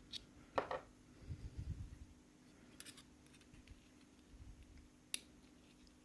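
A few faint small clicks and soft handling noise from a five-pin Iseo lock cylinder being gutted, its driver pins and springs taken out of the pin chambers one by one.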